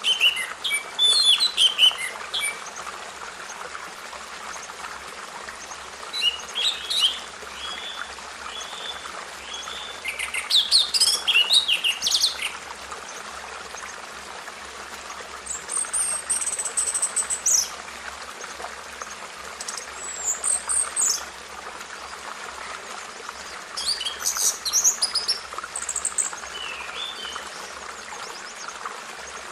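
Birds singing: short bursts of chirps and trilled phrases every few seconds, over a steady background hiss.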